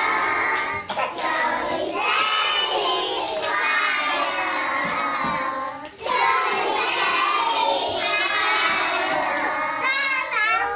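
A group of young children singing a birthday song together, in sustained phrases with short breaks between them.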